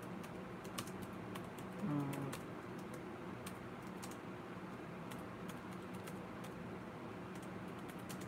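Faint, irregular key clicks of someone typing on a keyboard, over a steady low hum, with a brief voiced murmur about two seconds in.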